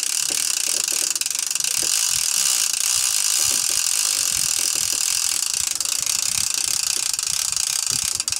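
Conventional fishing reel's drag clicking steadily as a hooked goliath tigerfish pulls line off on a run that will not stop. It is a continuous, high-pitched ratcheting buzz.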